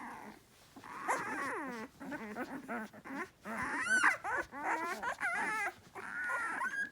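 Several puppies whimpering and whining at once, in overlapping high-pitched calls that slide up and down, the loudest about four seconds in. They are hungry and waiting for their mother.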